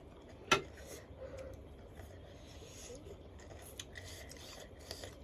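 Quiet eating and utensil-handling sounds: one sharp click about half a second in, then faint scattered small clicks.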